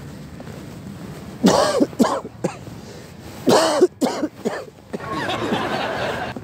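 A man coughing in harsh, repeated bouts with throat clearing: a put-on, exaggerated cough played as a prank. There are two loud bouts, then a longer rasping stretch near the end.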